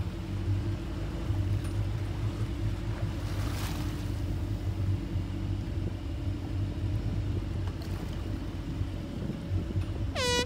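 A boat's engine running steadily at low speed, with water washing around the hull and wind on the microphone. At the very end a person's high shout begins.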